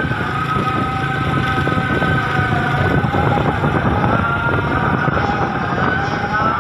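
Steady vehicle engine and road noise, with long, slowly wavering held high tones over it that drift a little in pitch.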